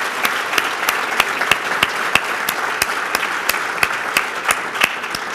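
Audience applauding, with sharp single claps standing out about three times a second over the dense clapping of the crowd.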